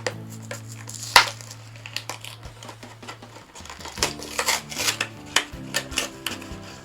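Toy packaging being handled and opened: irregular cracks, clicks and crinkling of plastic and card, with the loudest sharp crack about a second in and a busy run of crackling in the second half. Faint steady background music underneath.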